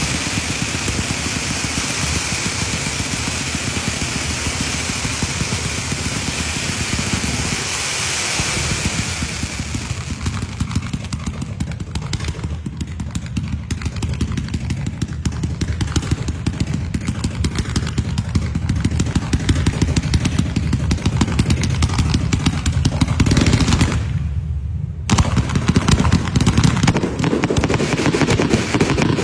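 Firecrackers going off in a rapid, continuous crackle of pops, with a hiss over roughly the first ten seconds; the crackle briefly drops out about 24 seconds in, then picks up again.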